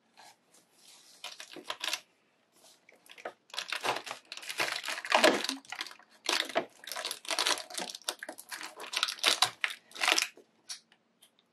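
A cardboard advent-calendar door being pried and torn open by hand, with irregular papery rustling, scraping and tearing in bursts that pick up a few seconds in.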